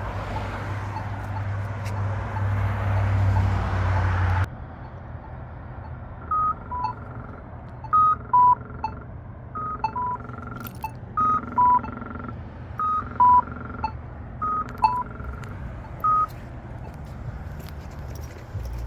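Polara EN4 accessible pedestrian signal push button sounding its loud electronic walk chirp. It repeats short two-note beeps, a higher note falling to a lower one, about every second and a half. Before the beeps start there is a few seconds of passing traffic, which cuts off suddenly.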